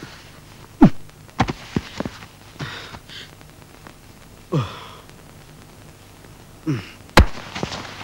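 A man's short grunts and huffs of effort, each falling in pitch and a few seconds apart, with a sharp thump about seven seconds in.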